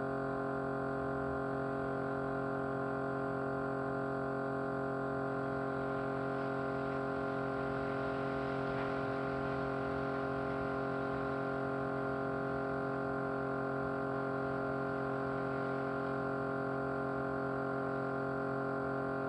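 Small electric motor running with a steady vibrating hum, a dense even drone that does not change.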